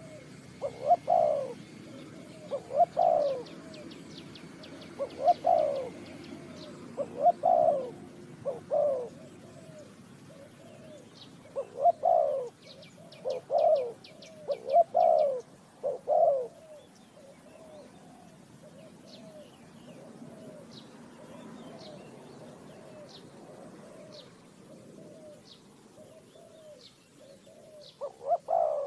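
Spotted dove cooing in repeated phrases. The coos are loud for about the first half, fade to faint calls, then grow loud again near the end. A small bird's rapid high chirps can be heard in the background.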